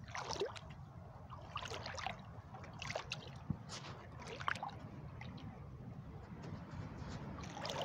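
Shallow water sloshing and trickling, with scattered brief splashes, stirred by someone wading through it.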